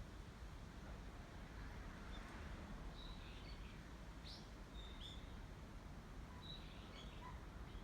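Faint, short bird chirps, several scattered calls that come mostly in the second half, over a steady low outdoor rumble.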